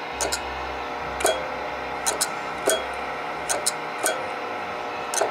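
Astatic D104 microphone's key bar pressed and released over and over, giving sharp clicks. The bobby pin rigged against the bar gives a brief faint ring after some of them. It is a homemade 'poor man's ping' of the Browning Golden Eagle kind, and it sounds weak because the bobby pin is a thin cheap one.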